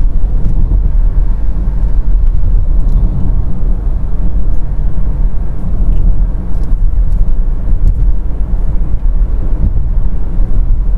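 Steady low rumble of tyre, engine and wind noise inside a car's cabin while driving at motorway speed.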